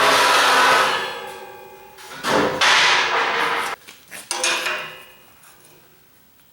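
Steel scraping and clanging with a metallic ring, in three swells: a long one at the start, another about two seconds in, and a short one after four seconds.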